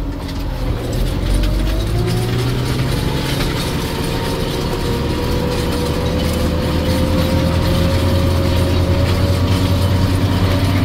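Tractor engine running under load, heard inside the cab, while pulling a vibrating-tine cultivator over frozen ploughed ground; the cab shakes and rattles. A mechanical whine rises slowly in pitch over the first few seconds, then holds steady over a deep engine hum.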